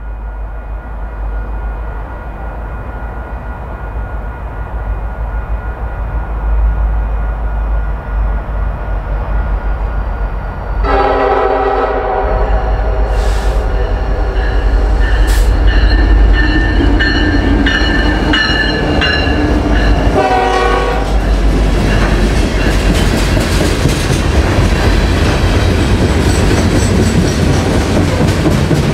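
Norfolk Southern freight train approaching and passing. The diesel locomotive rumble builds steadily. About eleven seconds in the locomotive horn sounds one long blast of roughly nine seconds, then a short blast. The locomotives go by, and the freight cars roll past with a rhythmic clickety-clack of wheels over the rail joints.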